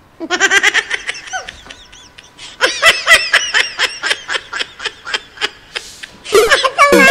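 High-pitched laughter in quick, rhythmic peals, with a short break about two seconds in. A short electronic jingle starts near the end.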